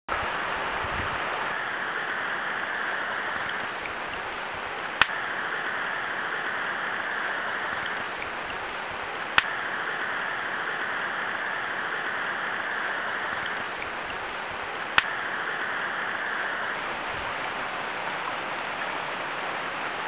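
Steady rush of a flowing forest stream, with three sharp clicks spread across it.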